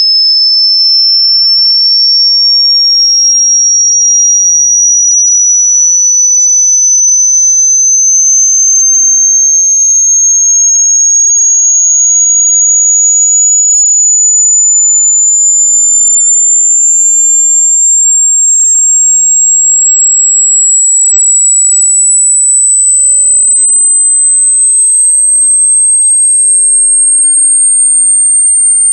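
A single loud, very high-pitched pure electronic tone gliding slowly and evenly upward in pitch, like a test-tone frequency sweep.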